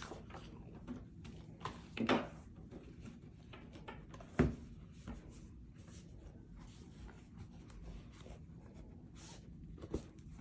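Packaging and a laptop being handled and unpacked: light rubbing and scraping with small clicks, and a couple of soft knocks about two and four and a half seconds in.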